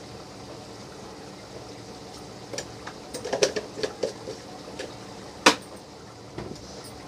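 A plastic jar and containers handled at the kitchen counter: a run of light clicks and knocks, the loudest a sharp click about five and a half seconds in. Under them is the steady hiss of masala frying in the pan.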